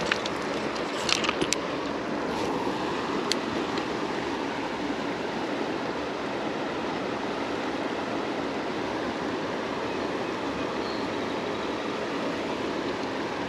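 Steady rush of flowing creek water, with a few light clicks in the first few seconds.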